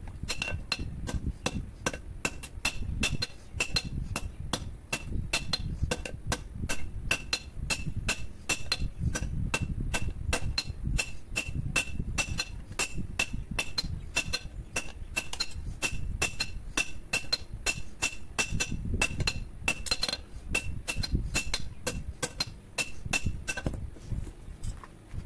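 Blacksmith's hand hammer beating a red-hot steel chopping blade, forged from an old power-tiller tine, on a steel anvil: steady strikes, about three a second, each with a clear metallic ring. The hammering stops shortly before the end.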